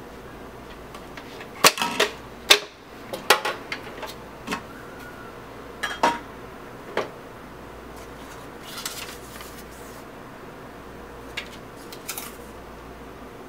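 Hard plastic parts of a Hamilton Beach Big Mouth juice extractor being handled and fitted together: a run of sharp clicks and knocks in the first seven seconds, then a brief scrape and a couple of lighter clicks.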